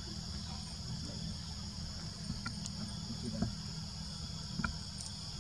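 Steady high-pitched insect chorus, a continuous shrill drone from crickets or cicadas in the forest canopy, over a low steady rumble, with a few faint ticks.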